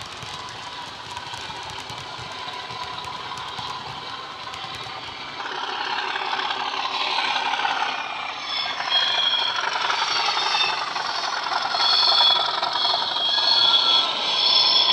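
Bachmann Class 37 model locomotive's factory-fitted DCC sound decoder playing its diesel engine sound through an upgraded double iPhone speaker, with high whistling tones over the engine note. The model's wheels click and rattle on the track. It grows louder about five seconds in as the locomotive approaches.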